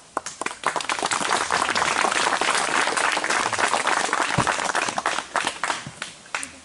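Audience applauding: scattered claps that quickly swell into steady applause, then thin out to a few last claps near the end.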